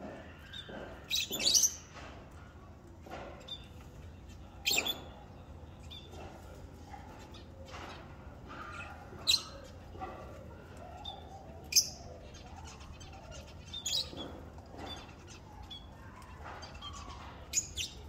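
Small parrots, lovebirds and a budgerigar, giving short, shrill chirps and squawks, singly or in quick pairs every two to three seconds.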